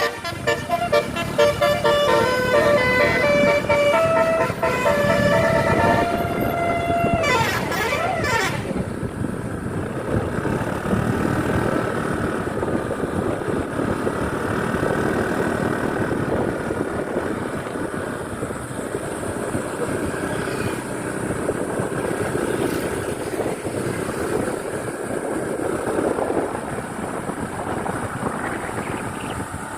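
Bus 'telolet' musical horn playing a stepped multi-note tune for about six seconds, followed by a brief sliding tone. After that only the bus running and road noise remain.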